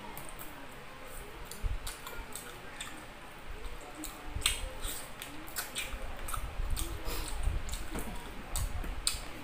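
Close-up eating by hand: fingers pressing rice and boiled chicken together on a plate, with wet chewing and many small clicks and smacks.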